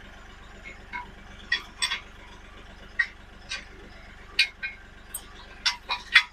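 Sharp, irregular plastic clicks and snips as nylon zip ties are tightened and their tails cut off around a tractor's hydraulic hoses, over a low steady hum.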